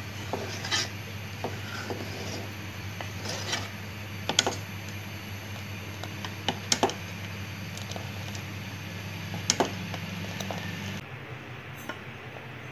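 A plastic ladle stirring milk in a metal pot, knocking against the side of the pot about six times, over a steady low hum that drops near the end.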